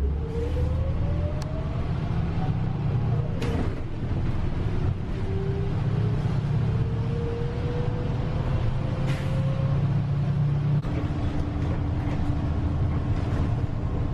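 City bus driving, heard from inside its cabin: a steady low rumble with a whine that rises in pitch as it gathers speed, twice, and a brief knock about three and a half seconds in.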